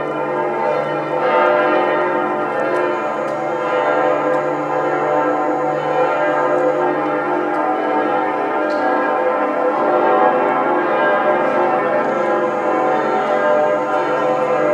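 Church bells of Ulm Minster pealing together: several large bells ringing at once in a continuous wash of overlapping tones.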